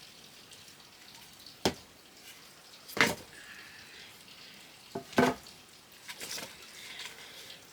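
Sharp knocks of hard objects being handled during cooking preparations, four in all with the last two close together, over a faint steady hiss.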